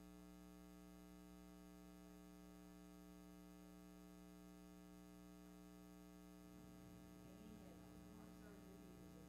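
Near silence with a steady electrical mains hum. Faint, indistinct sounds come in about two-thirds of the way through.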